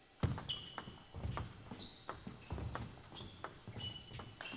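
Table tennis rally: the celluloid ball clicking off the bats and the table in quick succession, mixed with short high squeaks of shoes on the court floor.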